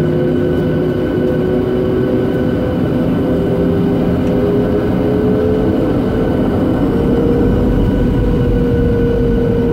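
Boeing 737-700's CFM56 jet engines heard from inside the cabin over the wing, a steady drone with whining tones that rise slowly in pitch as the engines spool up for the takeoff roll. A low rumble grows stronger about seven seconds in.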